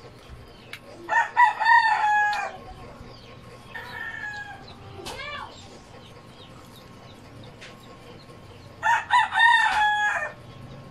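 A rooster crowing twice, each crow about a second and a half long, the first about a second in and the second near the end, with fainter calls in between.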